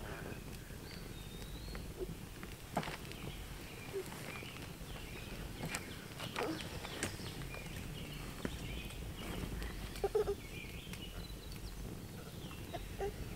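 Quiet woodland campsite ambience: faint bird chirps, with a few scattered sharp clicks and knocks.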